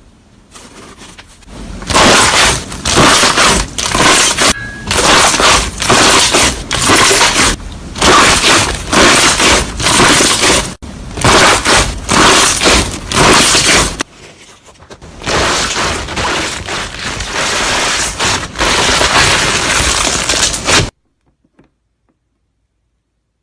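Loud crunching and crackling of something being crushed, in many rapid bursts with a short pause partway through, then cutting off suddenly near the end.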